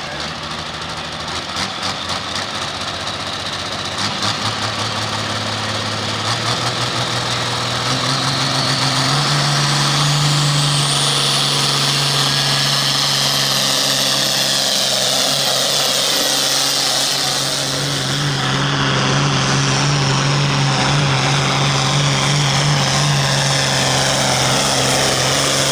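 Farmall pro field pulling tractor's engine revving up in steps and then running hard at high, steady revs as it pulls the sled, with a high whine rising and falling above it and a brief dip in revs near the end.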